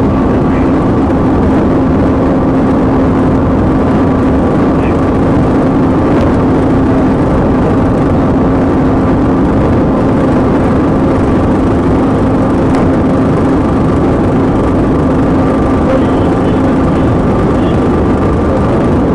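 Patrol car cruising flat out at about 130 mph, heard from inside the cabin: a loud, steady drone of engine, tyre and wind noise with a constant hum.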